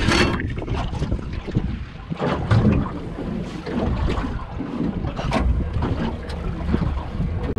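Wind buffeting the microphone over waves slapping an aluminium dinghy's hull, with scattered irregular knocks.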